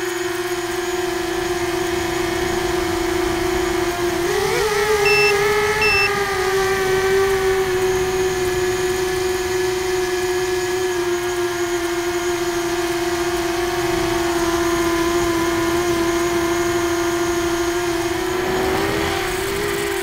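Tricopter's three brushless motors (F80-1900KV on 4S, three-blade 6x4.5 props) whining steadily in flight, the pitch wavering briefly about four seconds in and again near the end as the throttle shifts. Two short high beeps sound about five and six seconds in.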